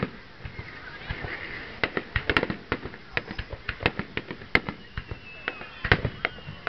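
Fireworks display: aerial shells going off in an irregular string of sharp bangs and pops, several a second at times.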